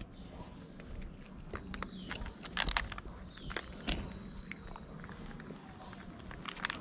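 A cat crunching dry kibble, with irregular crisp clicks of chewing.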